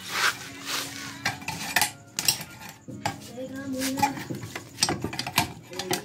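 A thin steel screwdriver scrapes, taps and clinks against the metal end cap of an exhaust muffler in a quick, irregular series of metallic clicks and scrapes.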